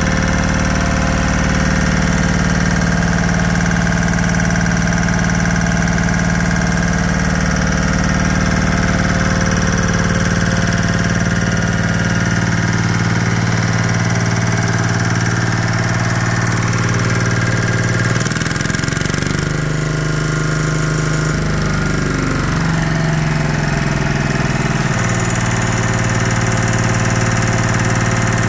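Lister Petter LT1 single-cylinder air-cooled diesel engine running steadily, its speed wavering briefly about two-thirds of the way through before settling again.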